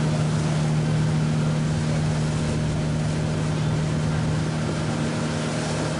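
Motorboat engine running at a steady pitch, a constant drone over rushing wind and water noise.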